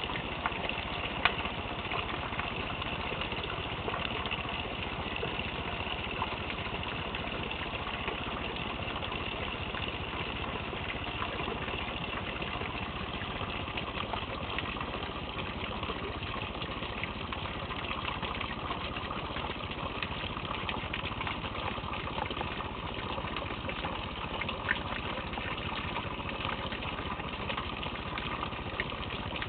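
Steady rain from a thunderstorm: an even hiss of falling rain with scattered sharp clicks of drops hitting nearby.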